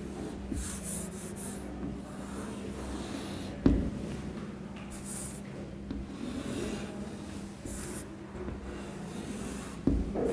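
Chalk scratching across a chalkboard in several short strokes as curved lobes are drawn. There are two sharp taps of the chalk against the board, one near the middle and one near the end.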